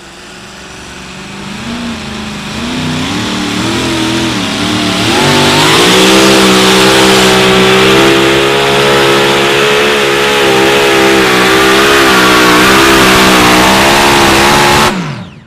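Two-wheel-drive pulling truck's engine at full throttle hauling the weighted sled down the track. The revs build over the first several seconds, then hold high with the pitch wavering up and down. Near the end the pitch drops sharply and the engine cuts off as it is shut down at the end of the pull.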